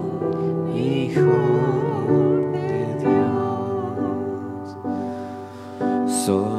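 Slow live worship song: sustained keyboard chords with a voice singing a drawn-out melody with vibrato over them.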